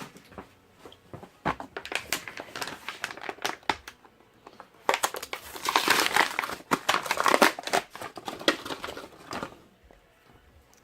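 Packaging crinkling and crackling in dense spells as it is handled and opened to get at a new tube of Goop adhesive, busiest in the second half.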